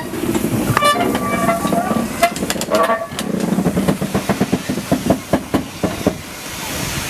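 Steam tank locomotive moving slowly past, giving a quick series of sharp exhaust beats, about four a second, in the second half.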